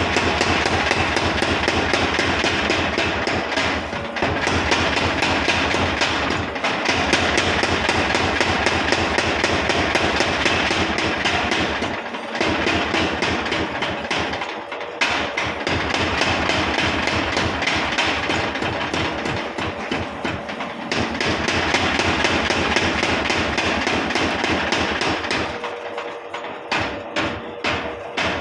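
Power hammer or similar machine striking rapidly and steadily, many blows a second, with brief pauses now and then.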